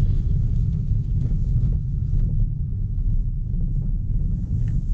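Car driving slowly over a rough, potholed dirt road, heard from inside the cabin: a steady low rumble of tyres and suspension, with a few faint ticks from loose stones.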